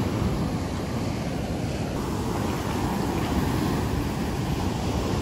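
Steady wind noise on the microphone over surf breaking on the shore.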